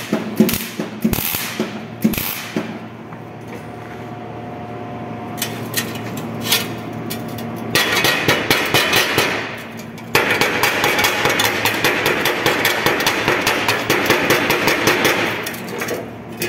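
MIG welder's arc crackling on thin carbon-steel sheet: a string of short tack-weld bursts in the first couple of seconds, then a longer dense crackle from about eight seconds in, broken briefly near ten seconds.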